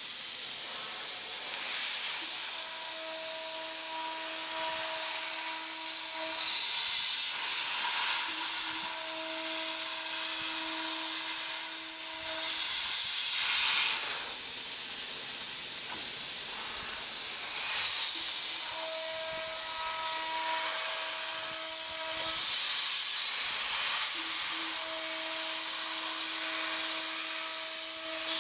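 Three-axis, two-head CNC machine running with a steady loud hiss, while a humming tone comes and goes four times, each stretch lasting about four seconds.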